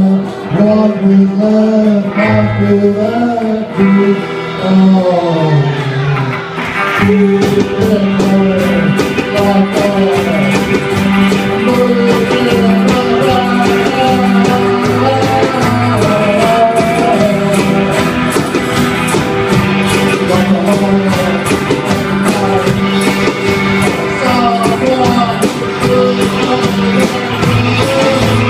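Live band with a group of singers performing a pop-rock song; about seven seconds in, a steady percussive beat of about four strokes a second comes in under the singing.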